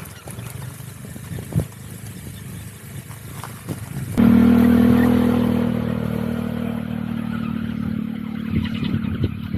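Motorcycle engine: a quieter stretch with a few knocks, then the engine comes in suddenly about four seconds in and runs at a steady pitch, slowly easing off.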